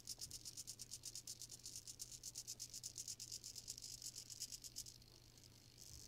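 Small SG90 hobby servo stepping its shaft round in small increments, a faint, quick, even ticking that stops about five seconds in as the servo reaches the end of its travel.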